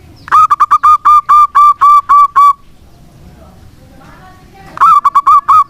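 Zebra dove (perkutut) calling loudly: a run of about nine quick, clipped cooing notes on one pitch, a pause of about two seconds, then a shorter run of the same notes near the end.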